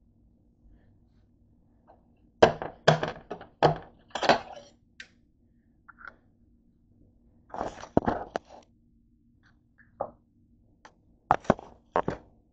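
Clattering knocks and taps of objects being handled on a kitchen countertop, in three short flurries, over a faint steady low hum.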